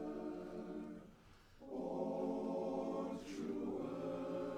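Male barbershop chorus singing a cappella in close harmony: a held chord that breaks off for a moment about a second in, then a new chord held through the rest.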